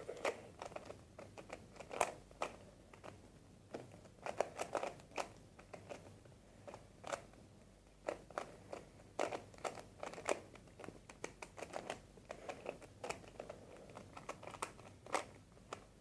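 A 3x3 Rubik's cube being scrambled by hand: its plastic layers turning with quick, irregular clicks and clacks.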